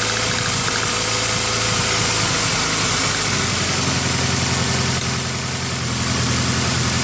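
2000 Honda CR-V's four-cylinder engine idling with a misfire (a miss) while cylinders are disabled one at a time to find the misfiring one. The engine note changes about three and a half seconds in.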